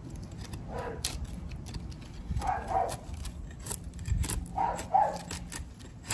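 Work Tuff Nomad field knife shaving curls off a stick of dry wood to make feather sticks, in many short scraping strokes with a couple of dull knocks. A dog barks a few times over it, mostly in quick pairs.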